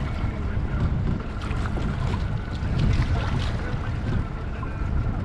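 A boat's motor running steadily on the water, with wind rumbling on the microphone.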